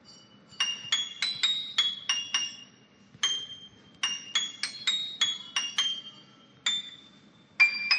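Background music: a slow melody of high, bell-like chiming notes, each struck sharply and ringing briefly, with short pauses between phrases.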